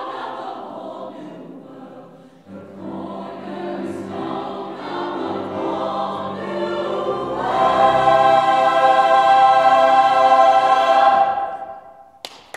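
Mixed choir of male and female voices singing, quieter in the first part, then swelling into a loud final chord held for several seconds and cut off sharply near the end.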